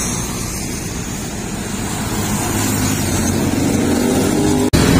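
Steady road traffic: cars and motorcycles driving past with engine hum and tyre noise, slowly getting louder. The sound drops out for an instant near the end.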